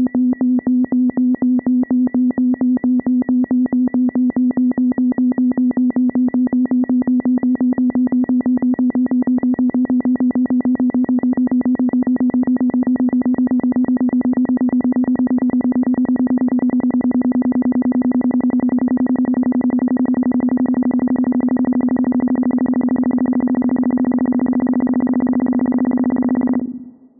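Vintage sci-fi 'space radar' sound effect: a synthesized electronic tone pulsing rapidly, with a thin higher tone above it. It stops shortly before the end.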